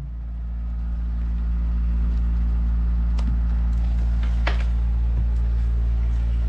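Steady low mechanical hum, like a motor running, that swells in at the start and then holds level, with a few faint clicks partway through.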